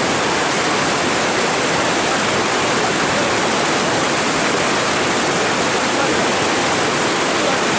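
White-water river rapids rushing, a loud, steady wash of moving water.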